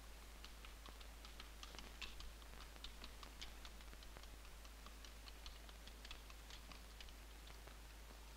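Faint, irregular light clicks and ticks, several a second, over near silence.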